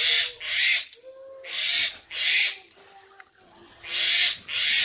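Powdered jaggery poured into tamarind water in an aluminium pot, then a ladle stirring it and scraping the pot in short bursts that come in pairs, about every two seconds. A faint low hooting call sounds in the background.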